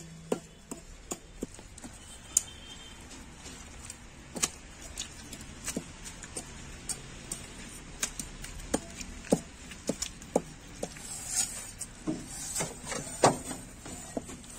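Bare hands kneading and mixing a heap of wet clay with water, giving irregular soft slaps and squishes of mud, with scattered sharper clicks that grow busier near the end.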